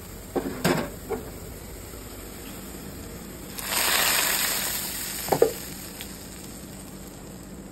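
Hot oil and fried vegetables poured from a frying pan into a pot of boiling curry, setting off a loud sizzle that swells about three and a half seconds in and dies away over a second and a half. A few sharp knocks of the pan come near the start, and two more just after the sizzle.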